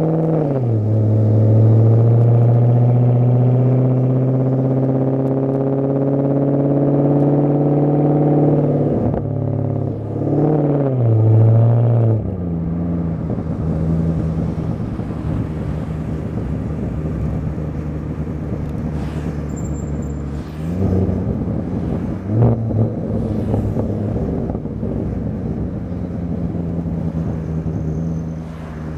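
Maserati Quattroporte Sport GT S V8 through a Tubi-style sports exhaust, heard from inside the cabin. The pitch drops at the start, then holds a steady, slowly rising note; after a brief rise and fall the engine settles to a lower steady note, with a couple of short revs near the end.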